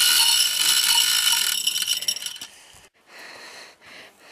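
Manual chain hoist being worked: its chain clatters and rattles through the hoist for about two and a half seconds, then stops.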